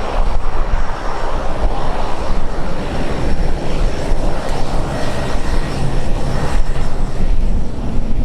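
Airplane engines running, a loud, steady rumble with no pauses.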